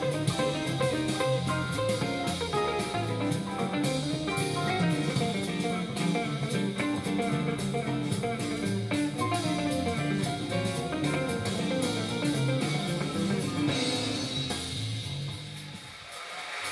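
Live jazz band playing: archtop electric guitar lines over grand piano, upright bass and drums. The music thins out and drops in level near the end.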